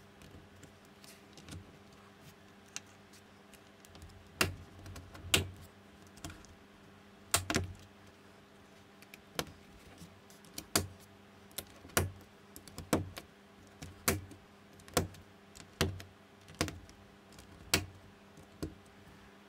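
Plastic LEGO-compatible bricks and plates being pressed and snapped together by hand: sharp, irregular clicks about once a second, some in quick pairs, over a faint steady hum.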